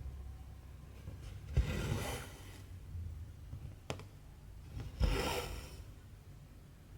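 Cotton embroidery thread pulled through cross-stitch fabric in two drawn-out pulls, one about a second and a half in and one about five seconds in. A single sharp click falls between them.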